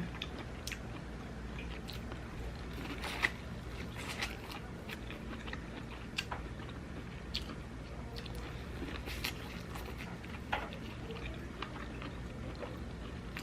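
Close-up eating sounds of a person biting and chewing fried Cajun corn: scattered crunches and wet mouth clicks with short pauses between them.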